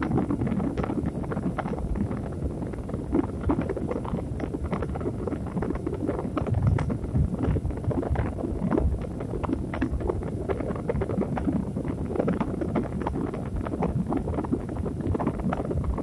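Sleep noise track: a continuous low, rumbling noise, thick with small crackles and pops throughout.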